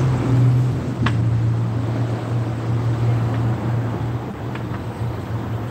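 A steady low motor hum over an outdoor rumble, with a single short click about a second in.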